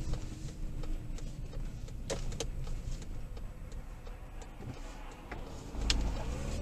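Car cabin noise at low speed as picked up by a dashcam: a steady low engine and road rumble with scattered light clicks and knocks, then a heavier low thump and rumble about six seconds in.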